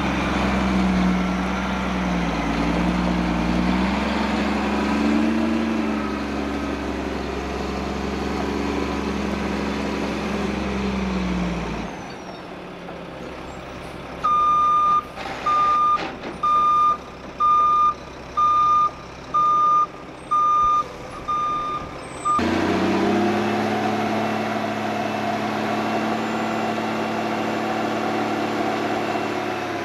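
Diesel engine of a dump truck running, its pitch rising and falling as the truck pulls into position. After a sudden cut, the truck's reversing alarm beeps about once a second for some eight seconds as it backs up, and then the engine runs steadily at raised speed while the dump bed is raised.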